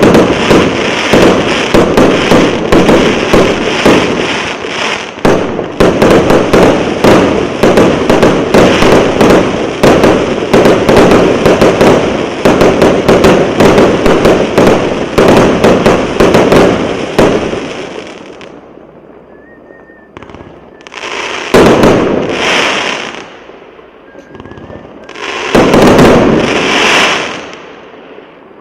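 Kremlyovsky multi-shot firework battery (salute cake) firing: a dense, rapid barrage of shots and bursts for about seventeen seconds, then dying away. It ends with two last loud volleys, each with a short crackling tail, about four seconds apart.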